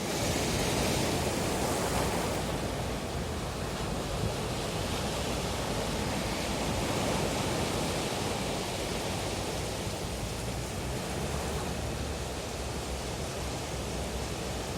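Sea surf washing on a beach, a steady rush of water with wind. The wash is strongest in the first two seconds or so, then eases a little.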